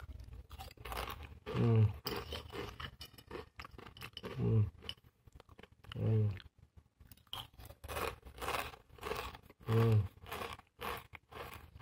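Crunching of crisp fried noodle-stick snack being chewed close to the microphone, a quick run of crackling strokes, broken every couple of seconds by a short low hummed voice sound.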